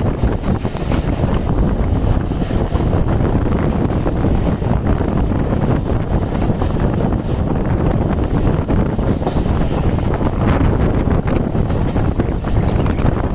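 Moving train: a steady rumble and rattle of wheels on the track, with wind buffeting the microphone.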